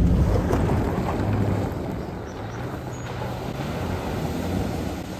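Toyota Tacoma pickup truck driving on a gravel road: a low engine hum under road noise, getting quieter over the first couple of seconds.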